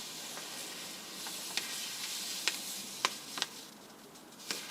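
Paper leaflet rustling as it is handled and leafed through, over a faint steady hiss, with about five sharp crinkles or clicks.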